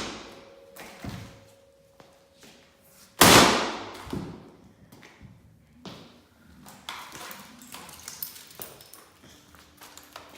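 Sledgehammer striking an old HP laptop: a lighter knock about a second in, then one heavy blow about three seconds in, followed by smaller knocks and rattles of loose plastic parts.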